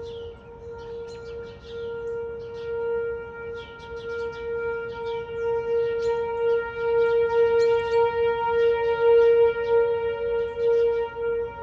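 Whelen 4004 electronic tornado siren sounding a steady, unwavering alert tone, its loudness swelling and fading as it sounds.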